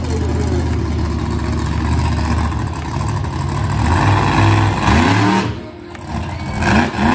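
Monster truck engine running hard, revving up twice in quick rising surges near the end as the truck rears up into a wheelie.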